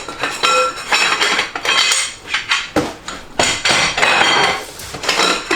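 Aluminum extrusions clinking and knocking against one another as they are lifted out of a box, with short metallic rings after many of the knocks.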